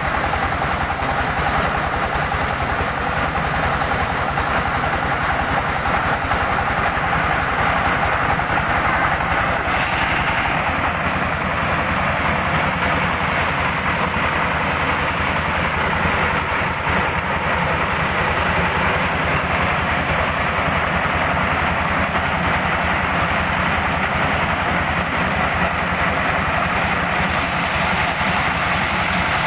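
Diesel-powered corn sheller running steadily under load: engine and threshing drum making a loud, continuous mechanical noise as corn is fed in and shelled kernels pour out.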